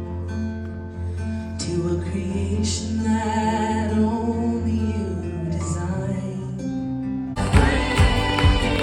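Music with singing: a sung melody over guitar and a steady low held note, then about seven seconds in a fuller band section comes in with a beat.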